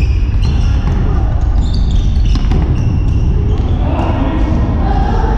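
Indoor futsal play in a sports hall: the ball being kicked and bouncing on the wooden floor, with players calling out, over a steady low rumble.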